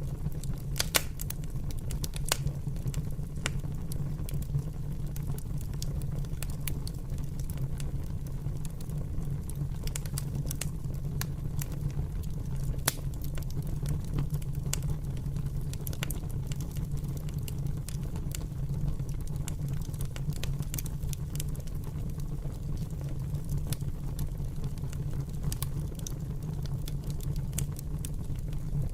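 Fire crackling, with irregular sharp pops and snaps over a steady low rumble.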